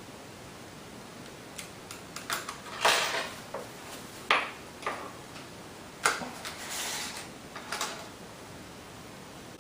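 A metal mounting bracket being fitted to a replacement laptop LCD panel by hand: a scattered series of small clicks, taps and short scrapes.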